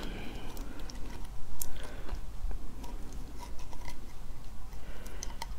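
A metal pick working sea-snail (whelk) meat out of its shell: scattered light clicks, with a low steady hum beneath.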